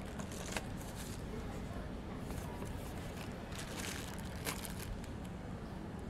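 Plastic wrapping around bundled cables crinkling in short bursts as it is handled in a cardboard box, over a steady low background noise.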